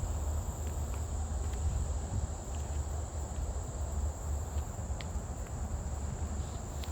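A steady high-pitched trill of insects over a continuous low rumble, with a few faint ticks.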